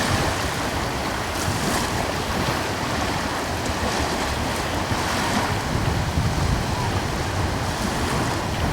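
Small ocean waves washing in steadily, with wind blowing over them and a gusty low rumble.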